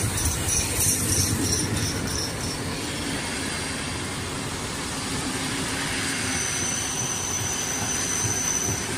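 Vintage wooden passenger carriages of a train hauled by the Hr1 steam locomotive rolling past with a steady rail rumble. There is a quick series of high ticks for the first couple of seconds, and a steady high-pitched wheel squeal from about six seconds in until near the end.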